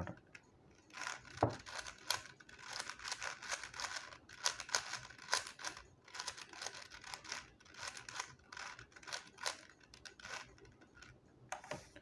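Stickerless plastic 4x4 speed cube being turned by hand: a quick, irregular run of clicking and clacking layer turns while a long last-layer algorithm is performed.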